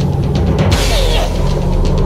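Cartoon soundtrack music with drums over a steady low bass, with a quick run of percussive hits in the first half.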